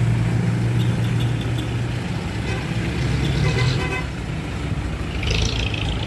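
Road traffic: a passenger jeepney's engine running close by with a low steady hum, and a vehicle horn tooting partway through.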